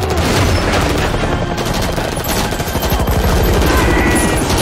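Rapid, continuous automatic gunfire from several guns, a dense run of shots.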